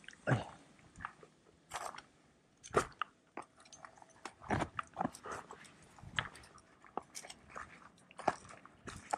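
Footsteps of a hiker crunching down a steep, dry dirt trail strewn with loose grit and dead leaves, landing at an uneven pace of roughly one step a second.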